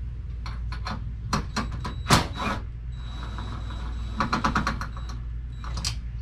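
Cordless drill backing out the bolts at the top of an RV awning arm: a series of clicks and rattles, with a sharp knock about two seconds in and a run of rapid clicking over a thin steady whine near the middle. A steady low rumble lies underneath.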